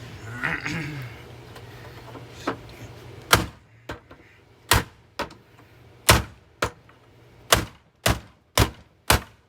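Hard blows striking a Hoover vacuum cleaner's casing as it is being smashed: about seven sharp impacts starting some three seconds in, coming faster near the end, with a few lighter knocks between them.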